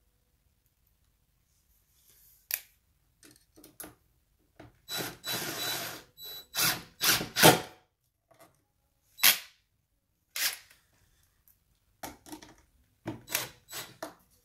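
Newly installed door lock and knob hardware being tested: a series of sharp metallic clicks and clacks as the latch and knob are worked. About five seconds in, a short stretch of a power drill/driver runs briefly.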